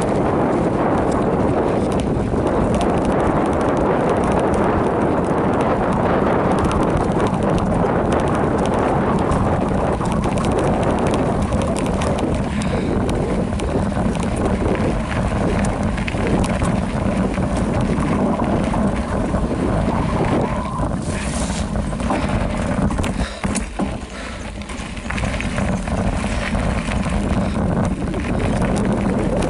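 Wind buffeting the microphone over the rattle and rumble of a Specialized Rockhopper Comp mountain bike's tyres and frame on a rough dirt trail during a fast descent. The noise eases briefly about three-quarters of the way through.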